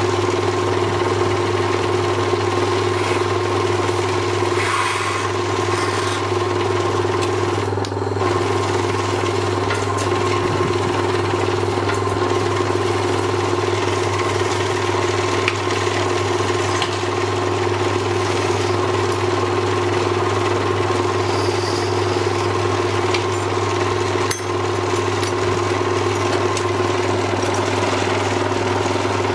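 Electric lathe running steadily: a constant motor hum with no change in speed.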